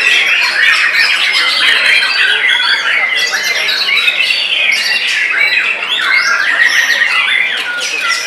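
White-rumped shamas singing, several birds at once: a dense, continuous chorus of quick overlapping whistled phrases and trills.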